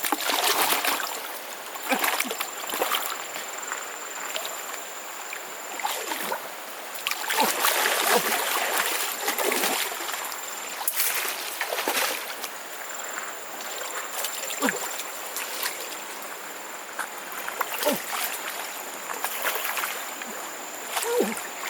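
Shallow river water splashing in repeated irregular bursts: hands slapping and churning the water to drive and catch fish.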